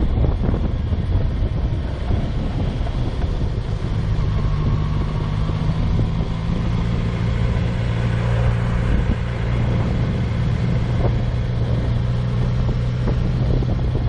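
Yamaha FZ6R's 600 cc inline-four engine running at low road speed under wind noise on the microphone. The engine note rises a little about four seconds in, then holds steady.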